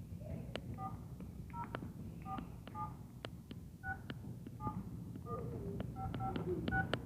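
Telephone keypad dialing a number: about ten short two-note touch-tones in an uneven rhythm, with key clicks among them.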